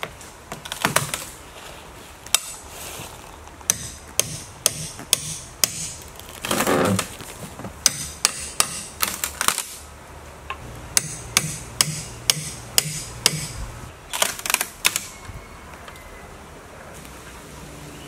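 Hammer knocking against a cabin's wooden wall boards in quick, irregular runs of strikes, with a longer scraping sound about seven seconds in. The strikes stop about fifteen seconds in.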